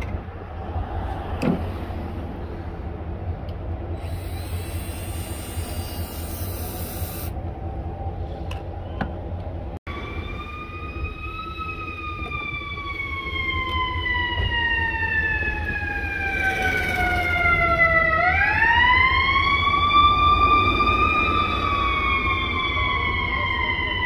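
Steady low rumble of city traffic, then from about ten seconds in an emergency vehicle siren wailing: its pitch sinks slowly for several seconds, swings back up quickly, then sinks again, getting louder as it goes.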